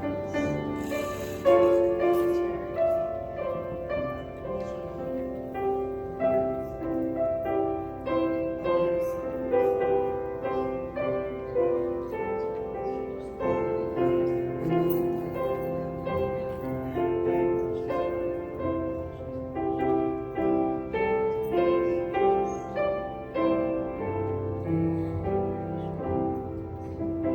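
Slow, gentle piano or keyboard music, a melody of held notes with chords beneath.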